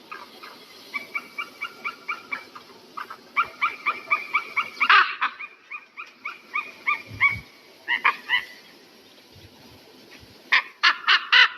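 Eagle calling: runs of short, high yelping notes, about four or five a second, with a louder burst of calls near the end.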